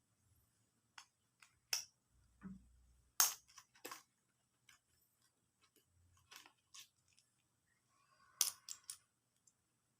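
Small tools and a phone being handled on a repair bench: scattered light clicks and taps, with a sharp click about three seconds in and a quick cluster of clicks near the end.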